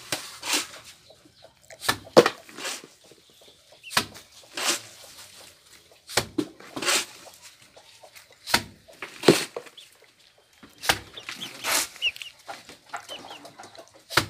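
Steel trowel scraping and slapping cement mortar onto a concrete-block wall, a short rasping stroke every second or two.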